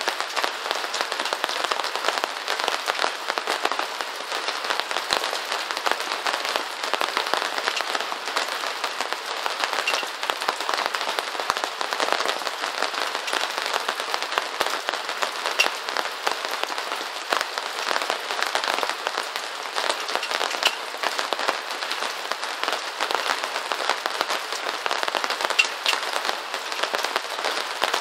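Steady rain falling on a surface: a dense, even hiss made of countless small drop ticks, with no low rumble and no change in strength.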